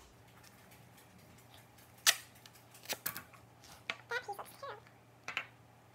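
Teal duct tape being pulled off the roll and torn in short rips and snaps, the loudest a sharp crack about two seconds in, with brief squeaky sounds just after four seconds.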